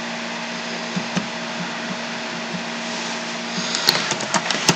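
Steady background hiss with a low hum, a couple of faint clicks about a second in, then a quick run of computer keyboard clicks near the end as a web address is typed.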